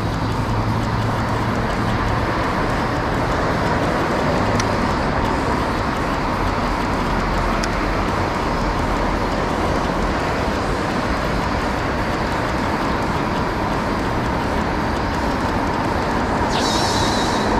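Small boat motor running steadily while the boat is underway, a continuous rushing noise with a faint steady whine. A brief higher-pitched hiss comes in near the end.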